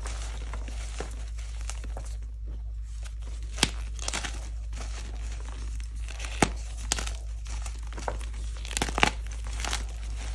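Hands crushing and crumbling soft blocks of gym chalk coated in corn starch and holi powder, a continuous dry crunching and crackling. Three sharp snaps of chalk pieces breaking stand out, about a third of the way in, past halfway, and a cluster near the end that is the loudest.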